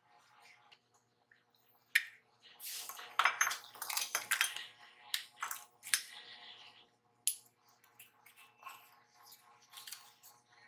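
Clinks, clicks and scrapes of metal tools being handled, busiest about two to six seconds in, then a few lighter clicks: steel step drill bits handled in and out of their aluminium case.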